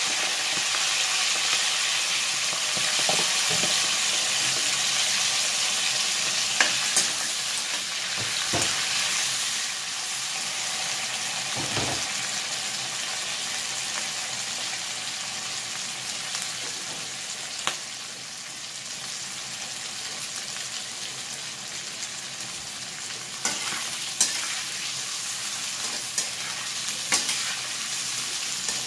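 Chicken hearts frying in hot oil in a wok: a steady sizzle, with a few sharp taps and scrapes of a metal spatula against the pan as they are stirred.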